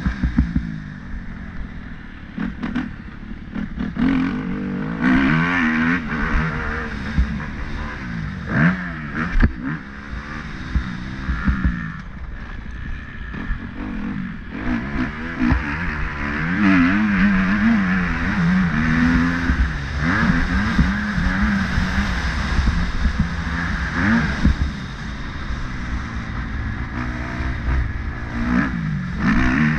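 Motorcycle engine being ridden hard, its pitch repeatedly climbing and dropping as the throttle opens and closes, over a constant low rumble.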